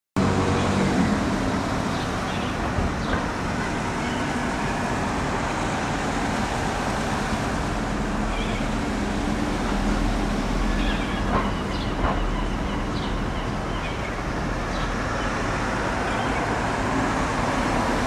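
Steady street traffic noise with a low rumble. A few faint, short high-pitched sounds stand out in the middle.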